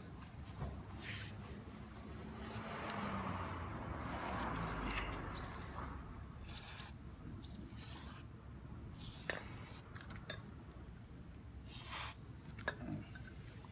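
Rag rubbing and wiping a motorcycle drive chain clean, with a few short hissing sprays.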